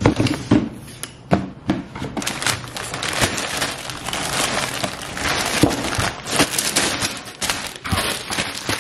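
Cellophane bags around plastic model-kit runners crinkling as they are handled, with a few sharp knocks of the box and parts in the first two seconds and more knocks later.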